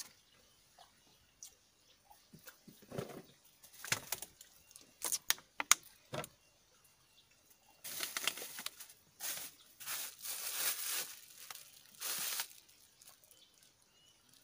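Handling of a banana-leaf wrapper and a thin plastic water bottle: scattered clicks and crackles for the first six seconds, then a few seconds of louder rustling and crinkling.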